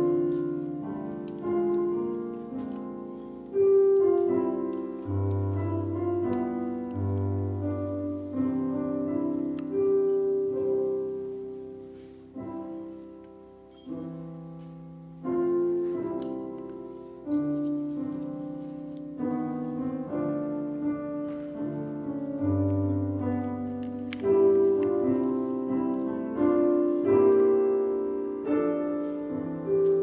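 Piano playing a slow piece, chords struck and left to fade, growing softer for a moment about halfway through.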